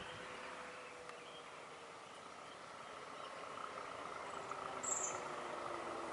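Steady chorus of crickets or similar insects from roadside scrub, with a single brief, high bird chirp about five seconds in.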